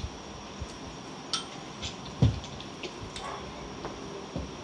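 A few separate light clicks and a soft knock about two seconds in, small handling sounds in a quiet room.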